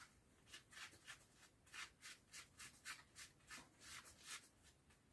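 Very faint rubbing strokes of a gloved hand working antique finish into a leather sword grip, a soft scuff about three times a second.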